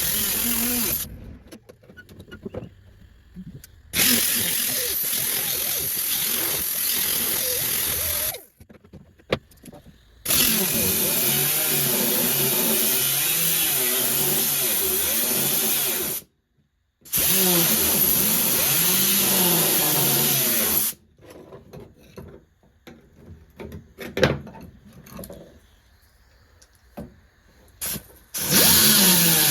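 A power tool run in several long bursts of a few seconds each with short pauses between, its pitch dipping and recovering as it bites into the metal of the car body.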